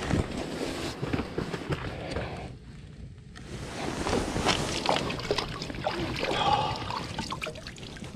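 Water splashing and trickling in an ice-fishing hole as wet hands are rinsed and dripped over it, with irregular small splashes and a short lull partway through.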